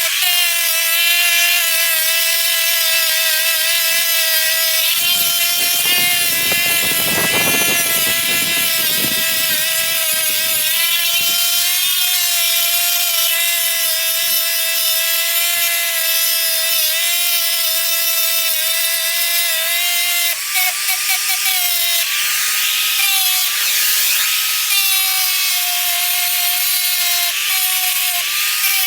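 Handheld electric power tool running with a steady high motor whine. From about 5 to 11 seconds a rough grinding noise joins it. In the last third the pitch dips again and again as the tool is pressed into the work.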